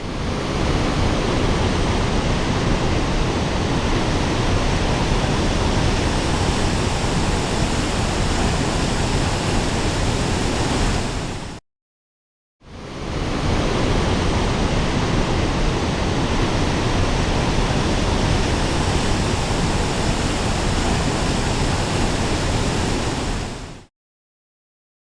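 Steady, loud rushing of a fast mountain stream's white water, in two stretches of about twelve seconds each, cut off abruptly about halfway through and again near the end, with a second of silence between them.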